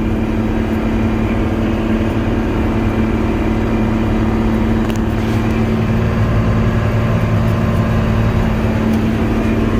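Steady drone of a running combine heard from inside its cab while it harvests canola: engine and threshing machinery hum evenly throughout, with a faint tick about halfway through.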